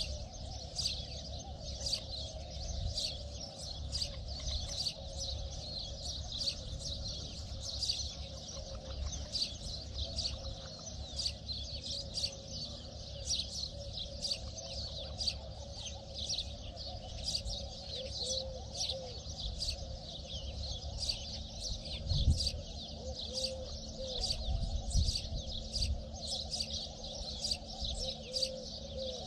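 Small birds chirping continuously in rapid, high-pitched runs, with a lower wavering call underneath. A couple of low bumps come about two-thirds of the way through.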